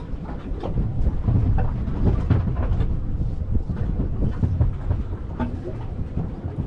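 Wind rumbling on the microphone aboard a drifting boat, with short splashes of water against the hull.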